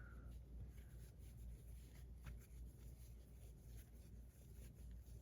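Faint rubbing of a cloth wiping down a fidget spinner, with a few light scrapes.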